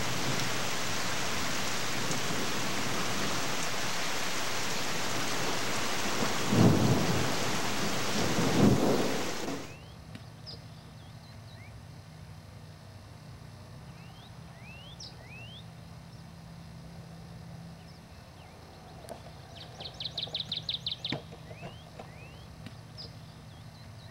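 Steady heavy rain with two loud rolls of thunder, about six and a half and eight and a half seconds in. A little under halfway through the rain cuts off suddenly, and there are short bird chirps and one quick run of about a dozen high notes.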